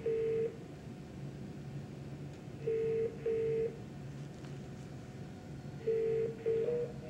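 Polycom ViewStation video-conferencing unit playing its ringback tone while dialing: three pairs of short ring tones, about three seconds apart, over a low hum. Near the end it switches to a quicker two-pitch beeping as the call goes unanswered.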